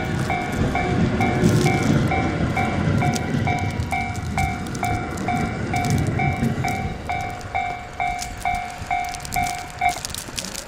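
Japanese level-crossing warning bell ringing a two-tone electronic chime a little over twice a second, stopping near the end. Under it, a JR 209-3000 series electric commuter train runs past with a loud low rumble and the clack of its wheels over the rail joints.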